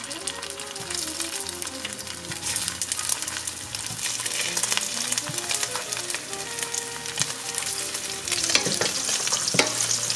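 Slices of plant-based sausage sizzling and crackling as they sear in hot olive oil in a stainless steel pan, with light clicks of tongs and pieces going in. The sizzle grows louder near the end as the slices are moved around with a spatula.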